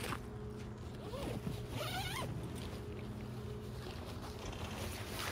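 Zipper on a tent carry bag being pulled open, the zipping rising and falling in pitch between about one and two seconds in. There is a short sharp knock at the start.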